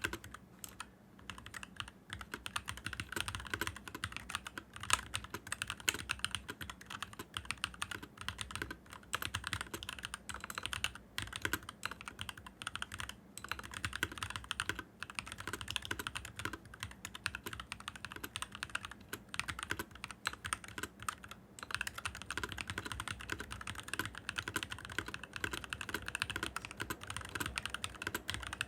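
Continuous fast typing on a stock, unmodified NovelKeys NK65 65% mechanical keyboard: a dense run of key clacks with a few brief pauses.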